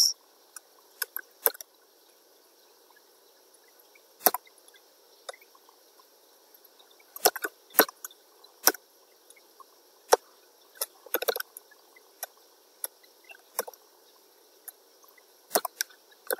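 Computer keyboard keystrokes: sparse, irregular clicks with pauses between them, a few coming close together about seven and eleven seconds in.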